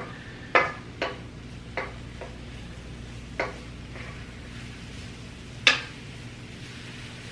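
Mushrooms sautéing in oil in a pan while a utensil stirs them, knocking and clinking against the pan every second or so, the loudest knock near six seconds in, over a soft steady sizzle.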